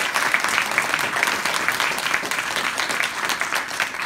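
Audience applauding: many people clapping together, dying down near the end.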